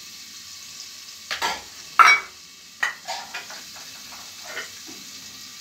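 Steel ladle stirring and scraping in a pot where onions and kasuri methi (dried fenugreek leaves) are frying in oil, over a steady sizzle. There are a few sharp scrapes and clinks of metal on the pot, the loudest about two seconds in.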